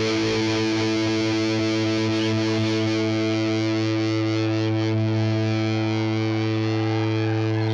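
Distorted electric guitar music: one chord held and ringing on steadily, its brightness slowly fading.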